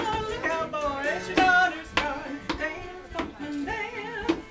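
A woman singing a song unaccompanied by speech, her voice holding and bending long notes.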